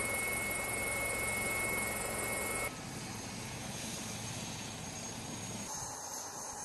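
AW159 Wildcat helicopter, a steady turbine whine over rotor noise heard inside the cabin. About three seconds in it cuts abruptly to a quieter, steady running of the helicopter on the ground with its main rotor turning.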